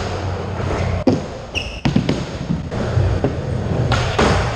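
Skateboards in a large indoor skatepark: wheels rolling and grinding along ledges, with a few sharp board clacks and landings about a second in, near two seconds and near the end.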